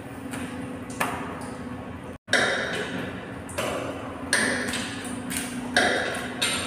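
Metal striking metal on steel pipework and valve fittings: about seven sharp, ringing clinks at irregular intervals, over a steady low machinery hum.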